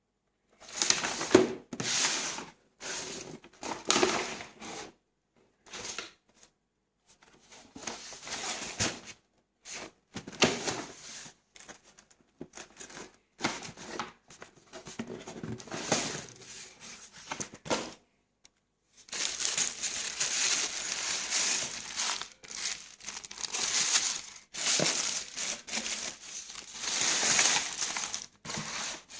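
Packaging being crinkled, crumpled and torn by hand while a box of boots is unpacked. It comes in irregular bursts with short pauses at first, then runs almost without a break for about the last ten seconds.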